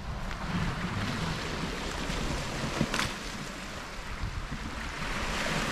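Wind buffeting the microphone over the steady wash of the sea on the shore, with one sharp click about three seconds in.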